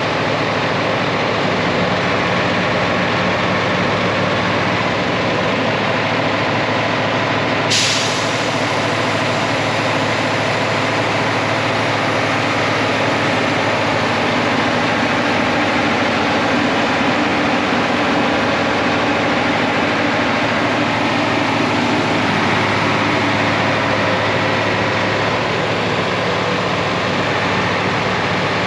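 Heavy truck diesel engine running steadily, with one sharp hiss of compressed air from the air brakes about eight seconds in. The engine note grows stronger for several seconds past the middle, then drops back suddenly.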